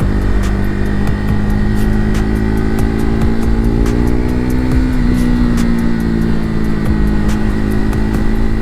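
KTM RC 390's single-cylinder engine running at a steady cruise while riding, its note rising gently until about five seconds in and then easing back a little.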